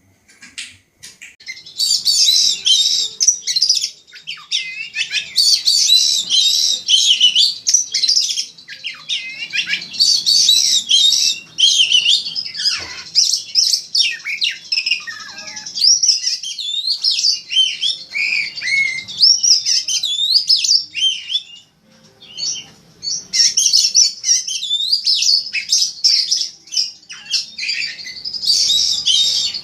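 Oriental magpie-robin (kacer) singing a loud, fast, varied song of rising and falling whistles, chirps and harsh notes in long unbroken phrases, with a short pause a little after the middle.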